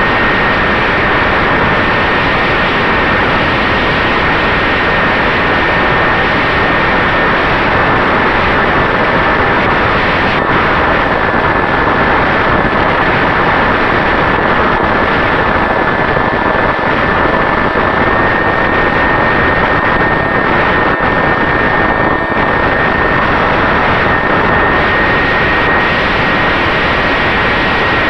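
Turnigy 3542 brushless motor spinning an 8x4 propeller on an FX-61 flying wing: a steady, near-constant whine under a heavy rush of wind noise.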